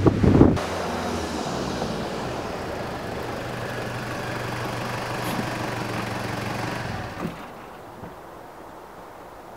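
Half a second of loud engine and wind rush that cuts off, then a Toyota Land Cruiser Prado (J90) idling steadily. The engine is switched off about seven seconds in, followed by a single light click.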